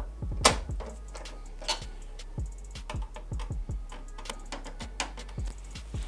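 Screwdriver driving motherboard screws fully into the case's standoffs: irregular small metallic clicks and ticks, the loudest about half a second in.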